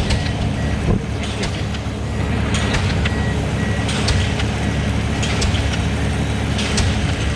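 A DD65 diesel pile hammer striking a concrete pile, a sharp blow about every 1.3 seconds, over the steady drone of the piling rig's diesel engine.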